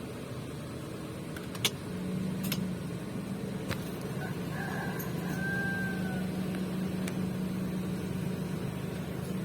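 Toyota Wigo's 1KR three-cylinder engine running with a steady hum that firms up about two seconds in, after a few sharp clicks. Midway a rooster crows briefly.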